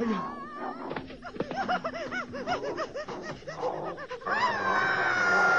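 Wolves yelping and snarling in a rapid run of short, rising-and-falling cries, then one long high cry starting a little after four seconds, during a wolf attack.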